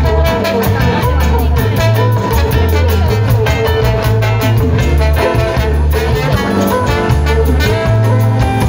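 Live samba-rock band playing an instrumental stretch: a driving electric bass line under a steady drum and percussion beat, with keyboard and horns on top.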